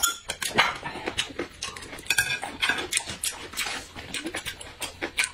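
Close-miked eating: loud chewing and slurping of noodles and crayfish, with many short clicks of chopsticks and utensils against plates.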